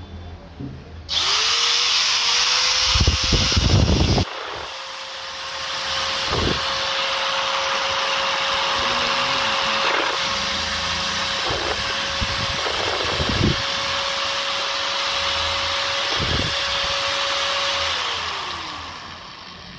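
MAL AG100BC angle grinder, fitted with a Polymak replacement armature, switched on about a second in: the motor spins up quickly to a steady tone and runs unloaded with no disc, then winds down near the end. A few low thumps sound during the run. This is a test run after fitting the armature, where a smooth gear sound is taken as the sign of a good fit.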